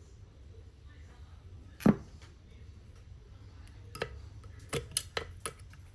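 Pliers knocking and clicking against the metal parts and housing of a Kärcher HD 585 pressure washer pump: one loud knock about two seconds in, then a quick run of smaller clicks near the end.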